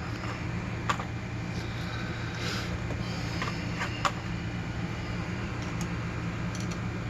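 A few faint scattered clicks and a brief light scrape as a picked padlock is handled and taken apart, over a steady low hum.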